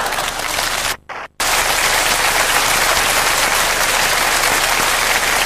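Audience applauding after a comic punchline, a dense, even clapping with a brief dropout about a second in.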